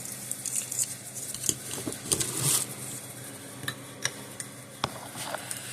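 Scattered light clicks and taps of small metal tools and parts being handled on a workbench while soldering a circuit board, over a faint steady hum.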